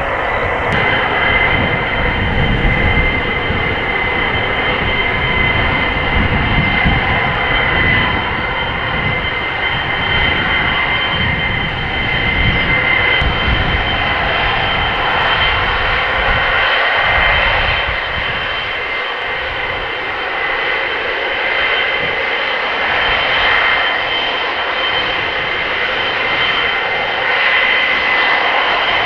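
Boeing 707 jet engines running at high power for takeoff: a loud, steady jet noise with two high steady whines over it. A low, gusty rumble beneath is strong at first and thins out in the second half.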